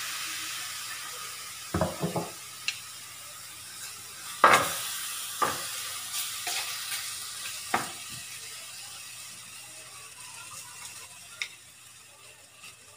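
Pork belly pieces sizzling in a frying pan on low heat as they begin to render their own fat, the hiss fading slowly. A wooden spatula knocks against the pan several times as the meat is stirred and turned.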